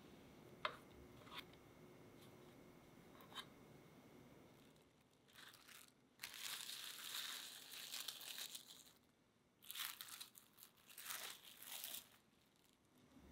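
Plastic cling wrap crinkling and rustling in handled bursts over a metal pan of shaped dough rolls. A few soft taps come first.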